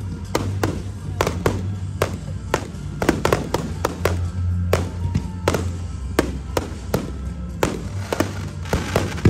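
Aerial firework shells bursting in quick, irregular succession, many sharp bangs a second, over music with a deep bass playing as the pyromusical soundtrack.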